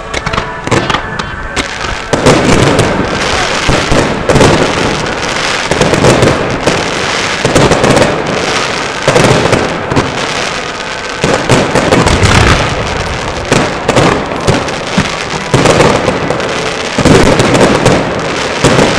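Fireworks display: rapid volleys of bangs and crackling shell bursts, thickening into a dense barrage about two seconds in.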